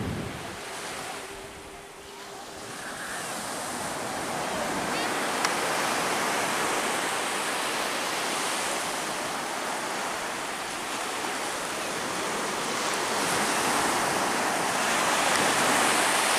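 Surf breaking and washing up a beach: a steady rush of waves that builds after about two seconds and swells again near the end.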